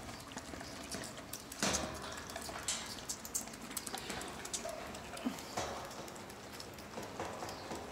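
Two bottle-fed Shetland lambs sucking milk from bottle nipples, with irregular wet slurping and smacking clicks.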